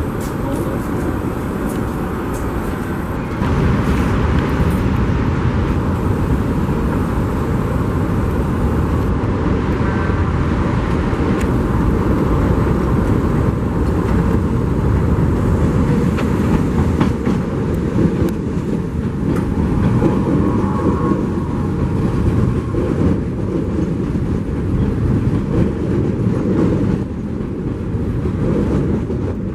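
New York City subway train running through an elevated station: a heavy, steady rumble of wheels on rails with scattered clicks, growing louder about three seconds in and easing off near the end.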